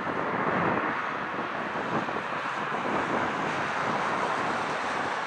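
Steady rushing noise of an airliner's jet engines as it taxis, swelling slightly at the start.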